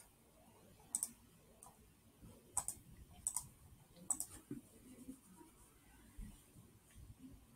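A handful of faint computer mouse-button clicks, spread out over several seconds, some coming in quick pairs.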